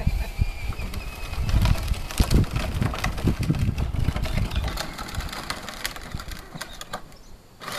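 Plastic wheels of a toy ride-on Jeep crunching and rattling over gravel as it is pushed, a run of irregular clicks, with a low uneven rumble that eases off about five seconds in.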